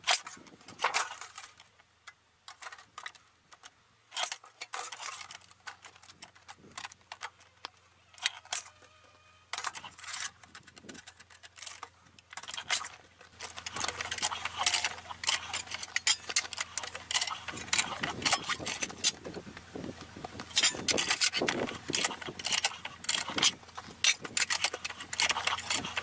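A combination shear, brake and slip-roll sheet-metal machine being worked by hand. First come scattered sharp metallic clicks and clanks as a thin metal sheet is handled and positioned. About halfway through, a continuous quick clicking rattle begins as the sheet is cranked through the slip rolls and curled into a curve.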